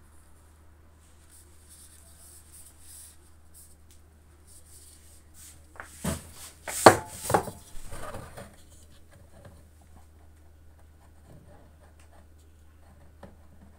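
A metal spray paint can being handled and turned in the hand, with a short run of knocks and clicks about halfway through, then soft handling.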